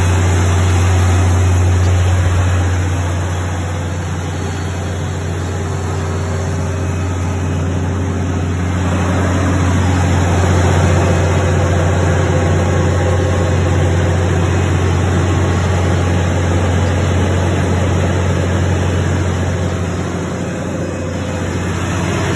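Cummins KTA19 six-cylinder turbocharged diesel engine of a 400 kW generator set running at a steady speed: a deep, even drone.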